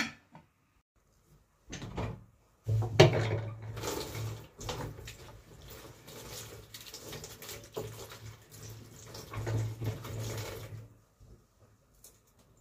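Water from a kitchen tap running into a sink while a knife is rinsed under the stream. It starts about three seconds in and stops about a second and a half before the end.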